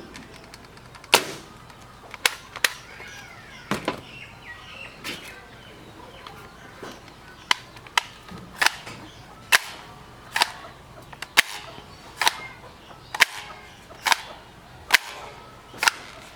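Toy foam blasters firing sharp single shots: a few scattered ones in the first four seconds, then a steady run of about one shot a second.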